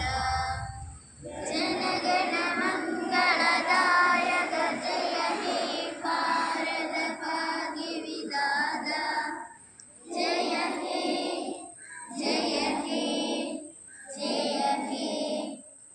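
A large group of schoolchildren singing together in unison, in sung lines broken by short pauses near the end.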